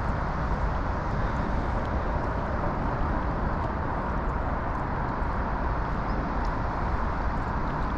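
Steady outdoor background noise with a low rumble, with no single event standing out.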